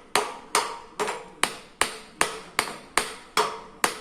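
Steel hammer giving light, evenly spaced taps, about two and a half a second, to drive the piston and rod assembly into a hydraulic tipper cylinder that won't go in by hand. Each tap is a short metallic knock with a brief ring.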